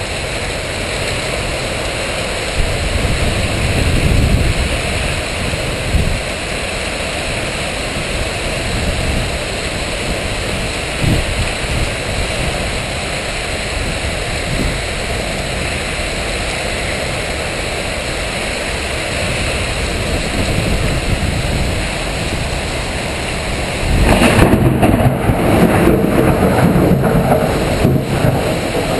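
Heavy storm rain pouring down as a steady rush of water, with low rumbles underneath. About 24 seconds in it turns louder and rougher.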